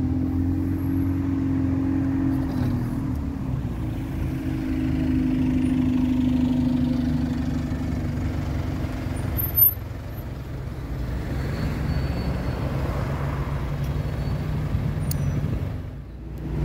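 Alexander Dennis Enviro200 single-decker bus's diesel engine running as it drives past close by, with a steady whining tone in the first half, amid road traffic. About ten seconds in there is a brief sharp knock, after which only a lower engine and traffic hum remains.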